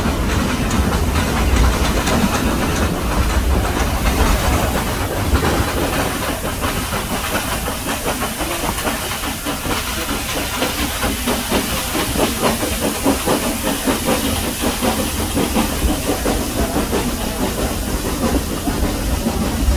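Nilgiri Mountain Railway steam train climbing a steep grade, heard from a carriage window: a steady hiss of steam and exhaust with a fast rhythmic beat, over wheel-and-rail running noise and a low rumble.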